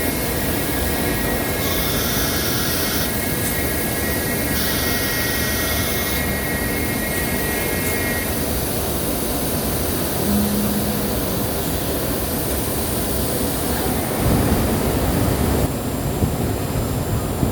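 Mecal MC304 Ariel 4-axis CNC machining centre running, a steady loud rushing noise from its 18,000 rpm spindle and machining. A high whine sounds over it until about eight seconds in, with two short bursts of hiss in the first half.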